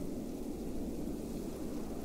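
Steady, low wind noise with no distinct gusts or other events.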